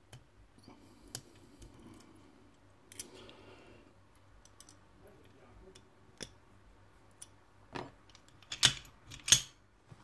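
Small metallic clicks of a hook pick and tension tool working the pins inside a Master Lock shutter padlock, then two louder sharp metal clacks close together near the end as the lock is handled.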